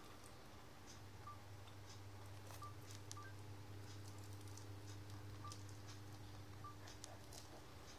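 Near silence: a faint steady hum of room tone, with several short, quiet high beeps scattered through it and a few soft clicks.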